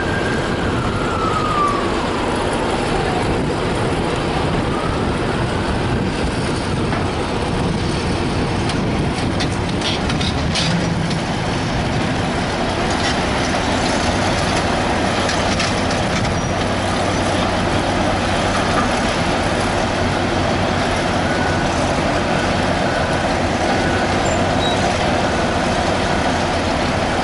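Heavy diesel crawler sideboom tractors running steadily at a derailment cleanup site. A siren wails twice in the first several seconds, a few sharp clicks come about ten seconds in, and faint repeated beeping sounds near the end.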